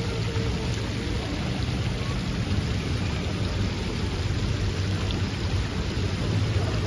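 Steady low rumble and hiss of street traffic.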